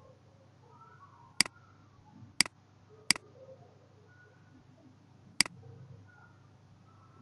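Computer mouse button clicking: four sharp single clicks, unevenly spaced, over a faint low hum.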